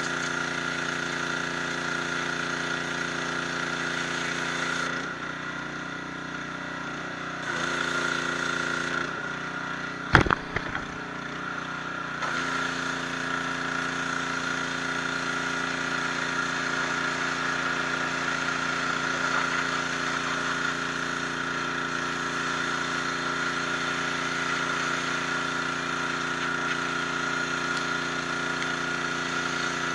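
High-pressure washer running steadily, its water jet spraying onto stone with a hiss. The sound drops for a couple of seconds twice, and there is a single sharp knock about ten seconds in.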